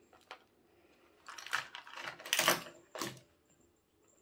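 Small plastic diamond-painting tools clicking and clattering as they are tipped out of a velvet drawstring bag onto a table, with rustling. The clatter comes in a few spells, loudest about halfway through, with a sharp click about three seconds in.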